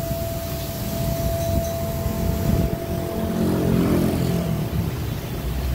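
Sugino MS2000VP CNC milling machine running with a steady high-pitched whine. A low rumble swells about halfway through and fades near the end.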